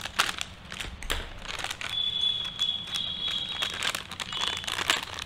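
Plastic foil snack packet crinkling as it is torn open, possibly with the teeth, in a run of short irregular crackles.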